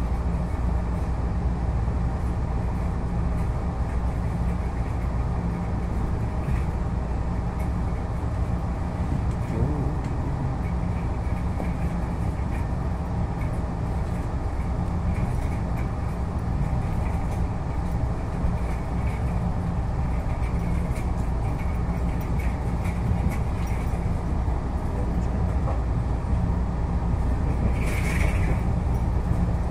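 Inside a TRA Puyuma Express (TEMU2000 tilting electric multiple unit) carriage while the train runs: a steady low rumble of wheels and running gear on the track. A brief higher squeal comes near the end.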